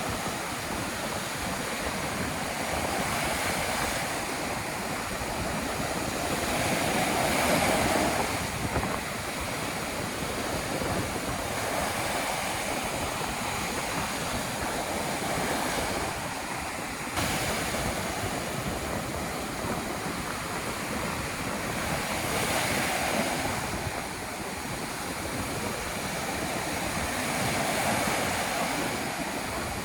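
Rough ocean surf on a windy day: a continuous rush of waves breaking on the beach, swelling louder now and then as bigger waves come in, with wind rumbling on the microphone.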